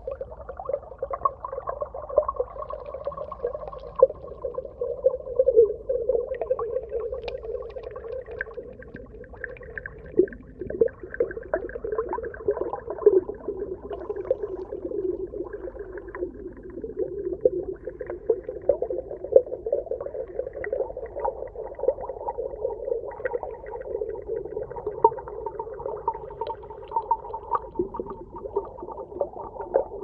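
Muffled underwater ambience: a continuous wavering hum with many small clicks and pops scattered through it.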